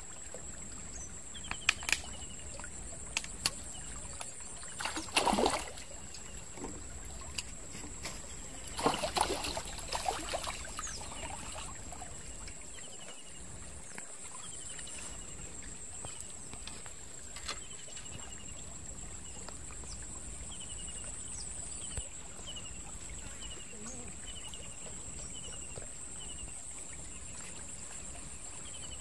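A hooked tilapia thrashing and splashing at the surface of a shallow stream, loudest in two bouts about five and nine seconds in. A steady high-pitched whine and short repeated chirps go on in the background.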